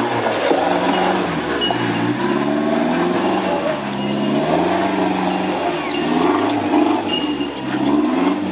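Toyota Hilux's turbo-diesel engine working up a steep rutted climb, its revs rising and falling again and again as the throttle is worked.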